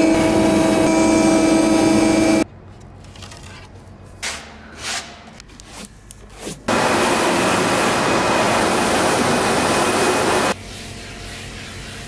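A UV flatbed printer's print-head carriage running with a steady machine whine, which cuts off after about two and a half seconds. A few soft swishes follow as a gloved hand wipes an aluminum panel. About halfway through a loud steady hiss starts, runs for about four seconds, then drops away.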